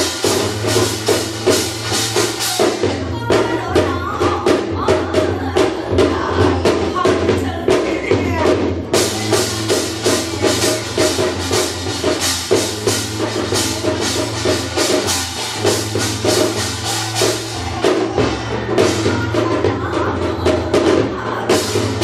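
Korean shamanic gut accompaniment: a janggu hourglass drum and metal percussion play a fast, steady rhythm, about two or three strong beats a second.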